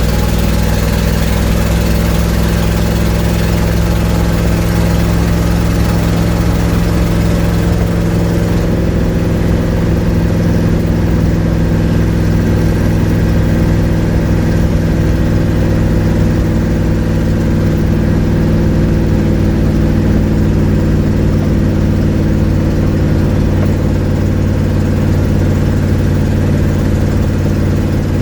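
1972 Ford Mustang's engine, heard from inside the cabin, running steadily at an even speed while driving. The car has an exhaust leak.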